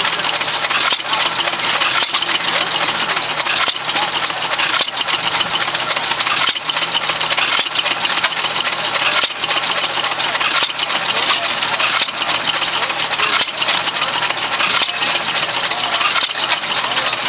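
Fuller & Johnson hit-and-miss stationary engine running, with an uneven beat that comes roughly every second and a half as it fires and then coasts on its flywheels, over a steady wash of other engine noise.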